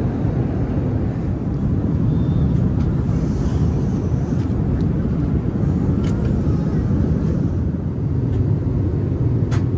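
Steady low rumble of engine and airflow noise inside an Airbus A380's economy cabin in flight.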